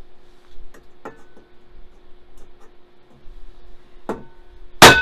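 Claw hammer striking a cold chisel held against a steel wok: a few light knocks, then one hard blow near the end that leaves the wok ringing with several bell-like tones.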